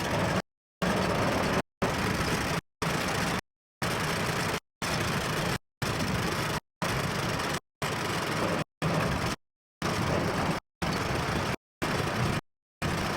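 Tractor engine running steadily in the field. The sound cuts out to complete silence for a split second about once a second, dropouts in the recording.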